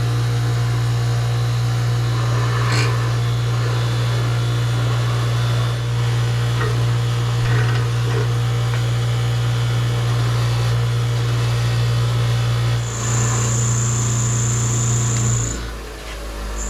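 Bench-mounted wire wheel running steadily as a vintage axe head is held against it to brush it clean. Near the end a high whine joins for a couple of seconds, then the motor is switched off and winds down.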